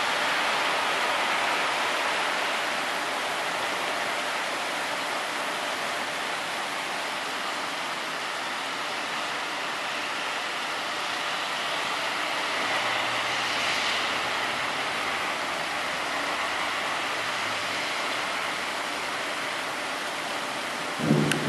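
Heavy rain falling, a steady hiss of water. Right at the end a loud low roll of thunder breaks in.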